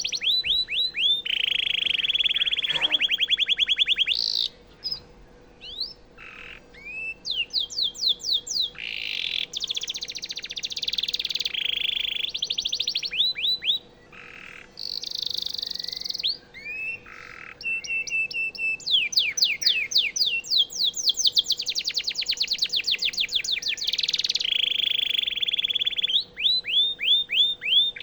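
Canary singing: long runs of fast repeated trilled notes and quick rising sweeps, in phrases broken by short pauses.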